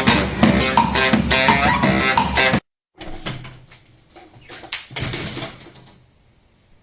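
Music with guitar and bass that cuts off suddenly about two and a half seconds in; after a moment of silence, a quieter clip with scattered, irregular sounds follows and fades to faint near the end.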